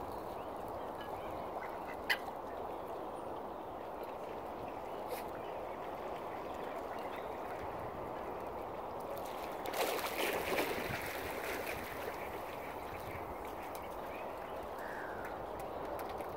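Mallard ducks quacking over a steady background hiss, loudest about ten seconds in.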